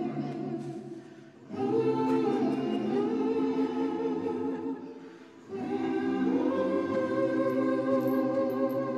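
Choir singing slow, sustained chords in long held phrases, with short breaks about one and a half and five and a half seconds in.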